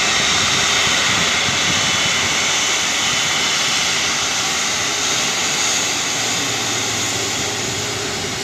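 Airbus A330-343's Rolls-Royce Trent 700 turbofan engines running as the airliner taxis on the runway: a steady jet rush with a faint high whine.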